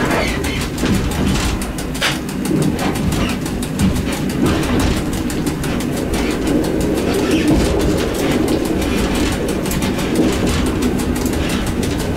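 EN57 electric multiple unit running, heard from its driver's cab: a steady low drone of motors and wheels on rail with a fast, even ticking over it.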